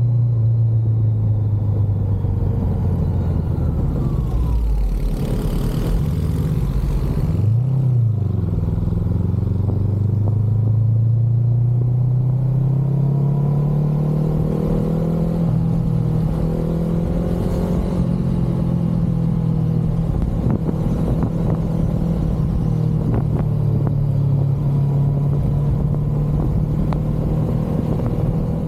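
Honda CBR500R's parallel-twin engine running through an Akrapovic exhaust. Its note holds steady, sags and briefly dips and recovers, then climbs gradually and holds steady at a higher pitch.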